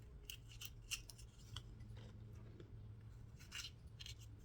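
Faint, crisp snicks of a thin, sharp knife blade slicing ghost pepper pods open: a cluster of short cuts about a second in and another near the end, over a low steady hum.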